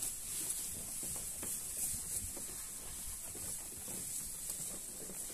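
Sheep rubbing and nibbling close by: irregular rustling with many small clicks.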